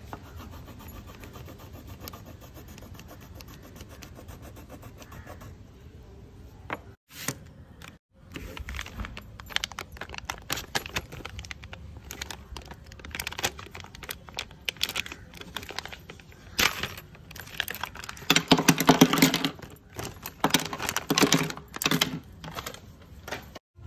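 Stationery kit contents and packaging being handled and unpacked: irregular clicks, light rattles and rustles over a low hum. They are sparse at first, grow busier, and are loudest in a dense run of clatter and rustling a little after three quarters of the way through.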